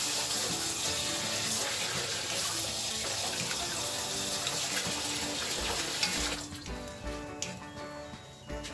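Spice paste and sweet soy sauce sizzling in a hot wok over a gas burner while a metal spatula stirs them. The sizzle cuts off about six seconds in, leaving background music with a low beat.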